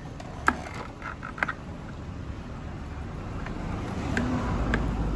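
A few sharp plastic clicks as an air filter is fitted into a motorcycle's air box, then a low vehicle rumble that builds up in the last second or so.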